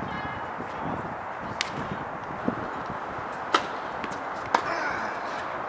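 Tennis balls being struck by rackets and bouncing during a rally: three sharp pops, about 1.5, 3.5 and 4.5 seconds in, over steady background noise.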